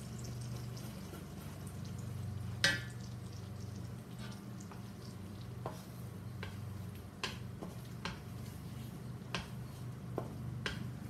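Eggs frying in a very hot wok while a wooden spatula scrambles them, scraping and tapping against the wok. A sharp knock about two and a half seconds in is the loudest sound, and scattered taps follow through the second half.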